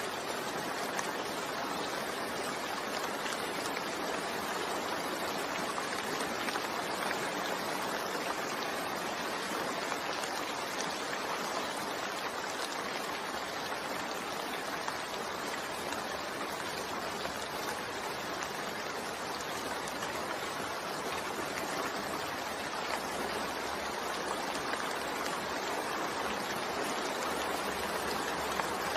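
Steady rain falling, an even hiss with faint scattered drops ticking on surfaces.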